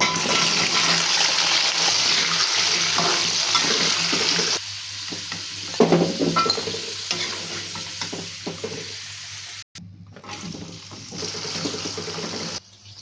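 Kitchen cooking sounds: a steady hiss at first, then stirring and the clatter of utensils and pans, broken off abruptly a few times.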